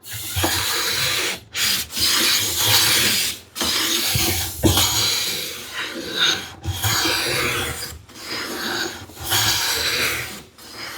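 Hand plane taking shavings along an ash board in about six long strokes, each one to two seconds with short breaks between: the blade is still cutting rough shavings, working out the roughness in the surface.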